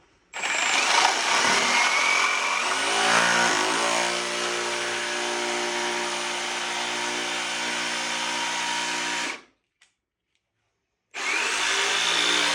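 Jigsaw cutting a wooden clapboard: the motor runs loud with a steady whine for about nine seconds, stops, and starts again about two seconds later.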